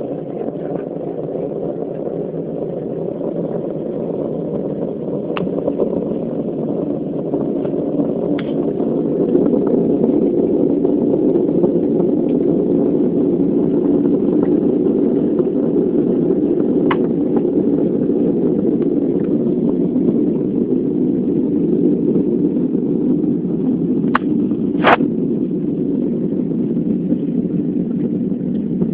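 Loud, steady low drone of many mingled tones, of the kind reported as the unexplained 'strange sounds' heard at night. It swells over the first ten seconds and then holds, with a few faint clicks and a sharper click about 25 seconds in.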